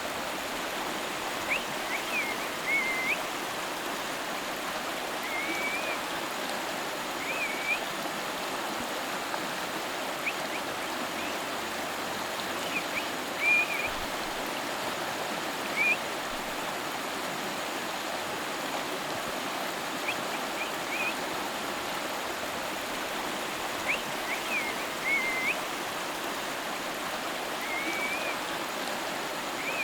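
River water flowing steadily with an even rushing noise. Short high chirps come and go over it every second or few seconds.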